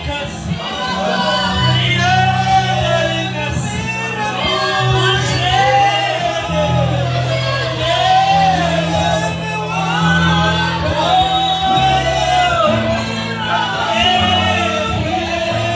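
A worship song: voices singing in repeated arching phrases over sustained low accompanying notes, echoing in a large hall.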